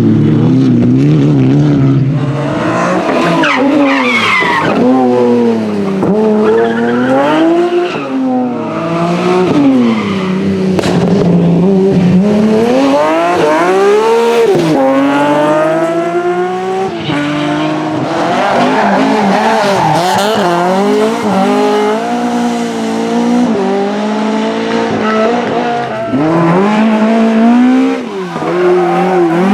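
Rally car engines at full throttle, the engine note climbing and dropping again and again through gear changes and lifts off the throttle.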